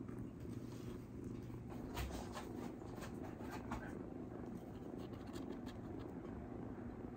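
A cat purring steadily, with a few faint ticks and taps over it.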